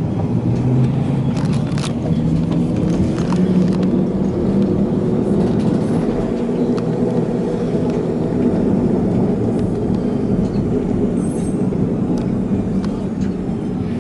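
W8-class tram running, heard from inside the car. There is a steady rumble of wheels on rails and the hum of the motors, which shifts in pitch, with scattered short clicks and knocks.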